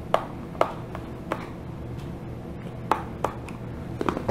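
Irregular sharp plastic clicks and taps, about eight of them, as a small screwdriver works at a screw in the back of a TI-83 Plus calculator's plastic case and the case is handled.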